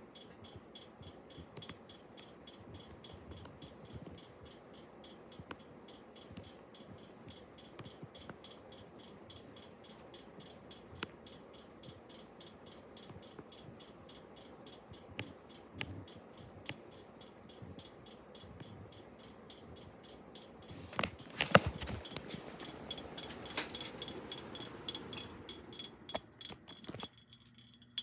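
1990 Craftmade Presidential II ceiling fan running, with a rapid, even ticking and light clinking rattle. A louder burst of clinks and rattling comes about 21 seconds in, and the sound falls away near the end.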